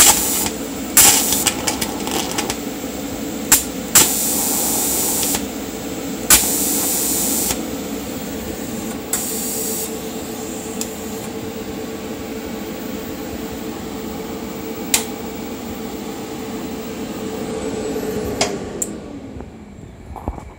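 TIG220P AC/DC inverter TIG welder running with a steady hum, while a torch is struck in several short bursts of arc hiss over the first ten seconds, with a few sharp clicks of the torch trigger and panel switches. Near the end the hum winds down, falling in pitch, as the machine stops.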